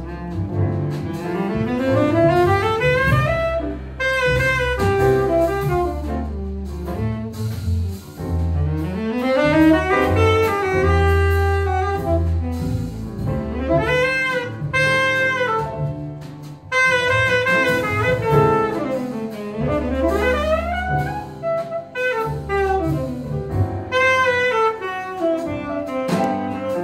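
Live jazz: a saxophone solos in fast runs of notes that climb and fall, with a double bass playing beneath.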